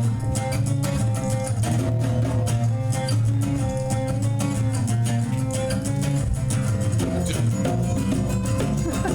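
A rock band playing the instrumental opening of a song live, with guitars to the fore.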